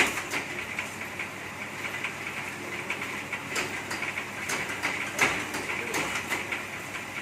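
Tulup-type bamboo satay-skewer machine running with a steady whirr, broken by irregular clicks and knocks; a sharp knock at the very start and another about five seconds in are the loudest.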